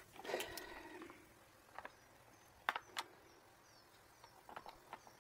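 Plastic pillar trim pieces being handled: a brief scrape, then a few light clicks and taps.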